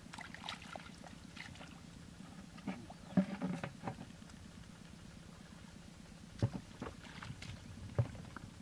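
Hands digging and scooping in waterlogged rice-field mud: wet squelches and small splashes in irregular clusters, over a steady low background rumble.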